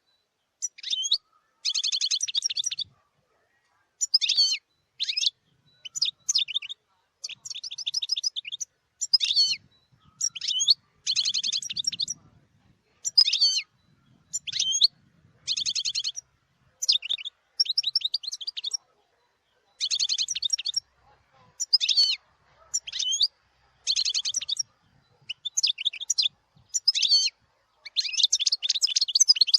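European goldfinch singing: a long run of short, high-pitched twittering phrases with rapid trills, broken by brief pauses.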